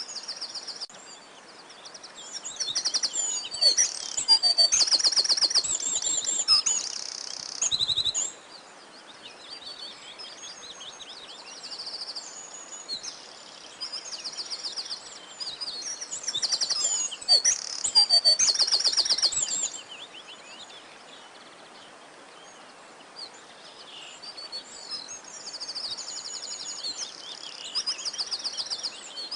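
Several songbirds singing and calling, with rapid high trills and chirps overlapping. The song comes in two busy bursts, one early and one past the middle, with quieter spells of scattered calls between them.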